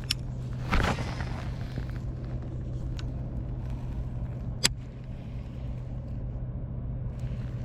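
Electric trolling motor running steadily with a low hum, with a brief rustle about a second in and a couple of sharp clicks later on.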